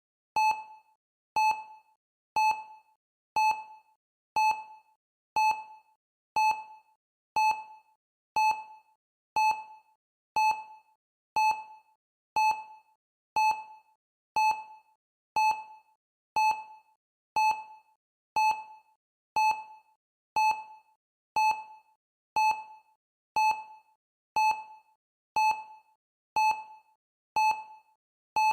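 Countdown timer beep sounding once a second, marking off the seconds: each one a short pitched ping that starts sharply and fades quickly.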